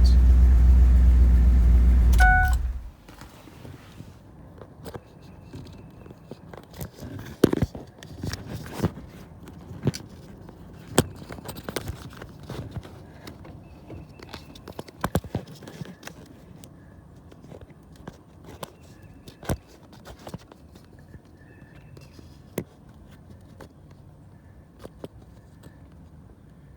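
Ford F-250 engine idling for about two and a half seconds, then cut off abruptly. After that come faint, scattered clicks and clinks of metal being handled.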